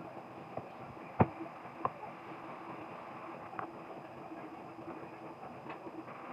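Breaded chicken nuggets frying in hot oil, a steady sizzle, with two sharp knocks about a second and two seconds in.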